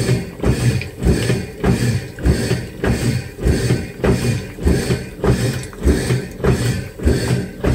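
Washing machine in its wash cycle: the motor hums steadily while the drum's agitator swings back and forth, churning the clothes and water in rhythmic surges.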